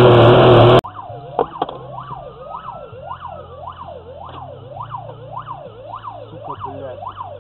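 Emergency-vehicle siren wailing quickly up and down, about two rises and falls a second, over a low steady engine hum. Before it, a loud rough noise cuts off abruptly under a second in.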